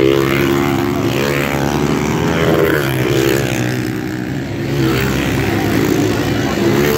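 Several pit bikes' small single-cylinder engines revving and buzzing together, their pitch rising and falling as the riders work the throttles.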